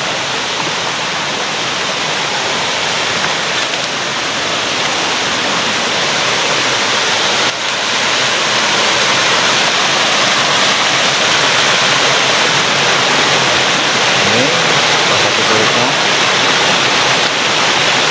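Steady rush of a small waterfall and stream cascading over rocks, growing a little louder about halfway through.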